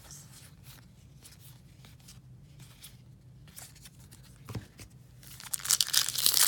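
A few faint light ticks of cards being handled, then about five seconds in a card pack's foil wrapper is torn open and crinkled loudly.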